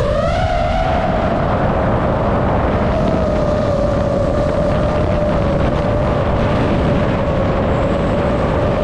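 DJI FPV drone's motors and propellers whining in flight, with wind rushing over the onboard camera's microphone. The whine wavers in pitch for about the first second, then holds steady.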